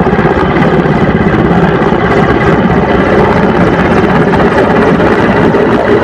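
Helicopter rotor and engines running steadily, with a fast, even pulse.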